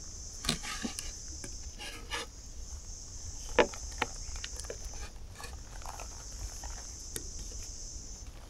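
A steady high-pitched insect chorus. A few short clicks and knocks sound over it, the loudest about three and a half seconds in.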